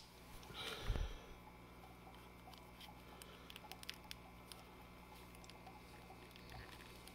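Faint handling of a plastic action figure and its small parts: light clicks and rubbing of plastic under the fingers, with a louder rustle and bump about a second in.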